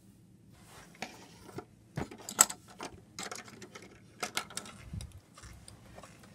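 Plastic Lego pieces clicking and clattering as they are handled and set down on a wooden table, in irregular bursts with one sharp click about two and a half seconds in.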